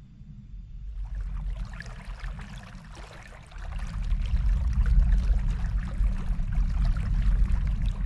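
Small waterfall splashing over rocks. The splashing comes in about a second in, over a low rumble, and grows louder about three and a half seconds in.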